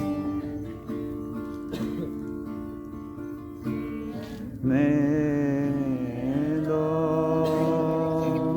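Worship-song music: acoustic guitar strummed chords, with a voice holding a long wavering sung note from about halfway in.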